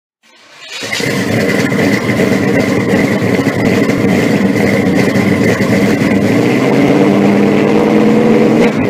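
A loud engine running steadily, fading in during the first second and fading out at the end, with a steady high whine over it.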